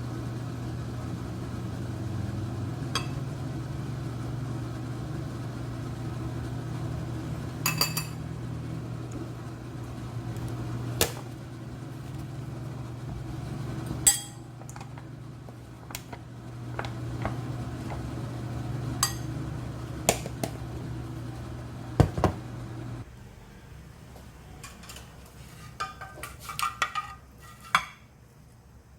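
Dishes and utensils clinking and knocking now and then over a steady low appliance hum, which cuts off about three quarters of the way through; the clinks come closer together after it stops.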